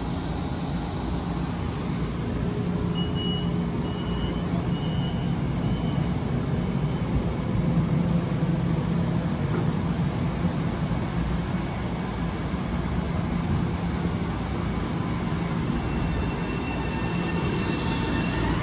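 Electric commuter train running with a steady rumble and hum. Near the end, a whine of several tones rises in pitch as the train's traction motors speed up.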